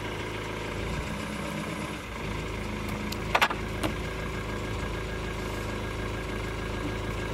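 Engine of the van used as the tow vehicle idling steadily, with a single short clack about three and a half seconds in.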